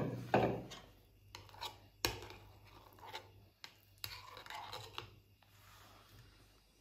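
A metal spoon scraping through thick cornmeal porridge and clicking against a glass bowl. The sound is loudest at the start, with a few sharp clicks spread through.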